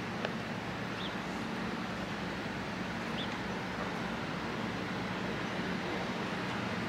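Steady outdoor background noise: an even rush with a low hum underneath, and two faint short high chirps about one and three seconds in.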